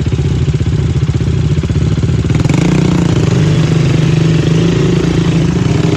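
ATV (quad bike) engine running under way with a fast, rough pulse, its revs picking up about halfway through.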